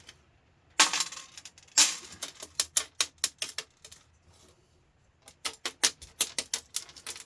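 Small steel nuts, screws and metal bits clinking and clattering as they are tipped out and sorted with a magnet. There is one burst about a second in, then two runs of quick clicks with a pause between them.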